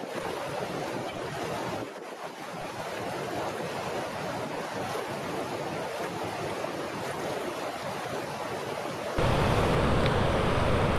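Rushing water of a fast-flowing river running over rocks, a steady hiss. About nine seconds in it turns suddenly louder and deeper.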